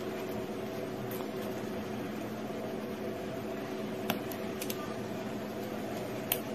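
Steady machine hum, like a fan, with a handful of small sharp clicks as metal tweezers handle and press a phone's sub-board into its frame.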